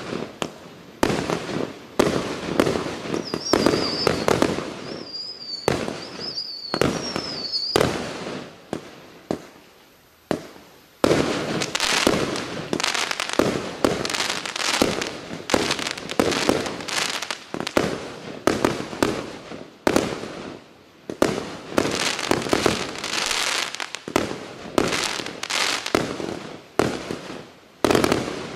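A Klasek 'Fireworks show 196' 196-shot fireworks cake firing shot after shot in quick succession: launch thumps and bursting stars, with a high wavering whistle running for a few seconds near the start and a brief lull about a third of the way through.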